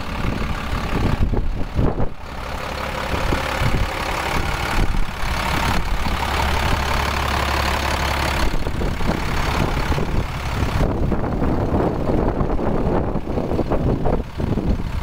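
A 2005 International 7500 truck's diesel engine idling, heard up close. The low rumble is steady and is loudest in the middle of the stretch.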